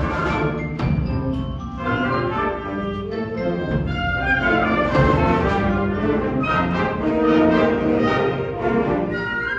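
High school wind ensemble of woodwinds and brass playing a concert band piece, with chords held and changing throughout.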